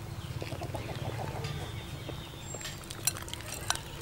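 A ladle knocks against the aluminium pot and a ceramic bowl a few times with sharp clinks near the end as fish is served from the broth, over a steady low rumble. Chickens cluck faintly in the background in the first half.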